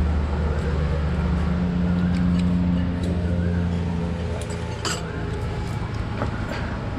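A motor vehicle's engine running close by, a steady low hum that eases off after about three seconds, with a single sharp clink about five seconds in.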